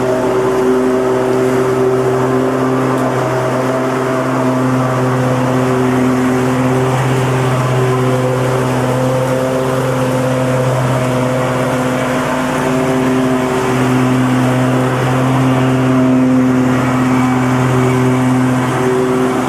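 Petrol lawnmower engine running steadily at a constant speed, a continuous loud drone with a deep hum.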